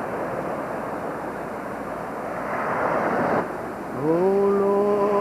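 Surf and wind noise on the camcorder microphone, swelling and then cutting off suddenly a little past halfway. About four seconds in, a voice starts singing a hymn, sliding up into one long held note.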